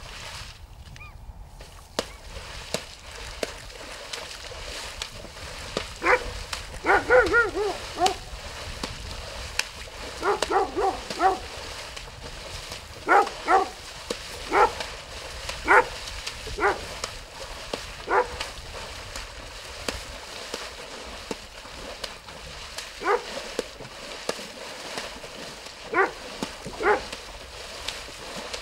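A dog barking in short, high yips, starting several seconds in and coming in scattered bunches of one to several barks, with pauses between them.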